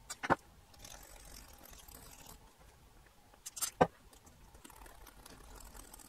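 Faint hiss of a DeoxIT aerosol contact cleaner spraying through its extension straw into a small slide switch. A few sharp clicks come just after the start and about three and a half seconds in.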